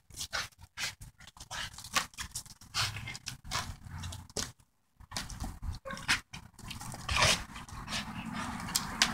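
A dog hanging from a springpole rope by its jaws, tugging and breathing hard through its clenched teeth, with short irregular scuffs and rustles. It drops down near the end.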